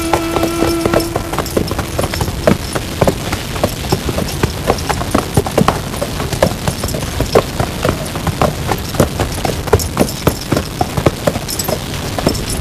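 Hooves of several ridden horses walking, an uneven run of clip-clop steps.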